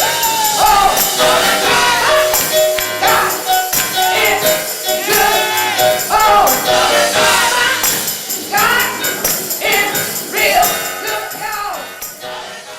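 Gospel singing by a group of voices with a tambourine jingling along, fading out near the end.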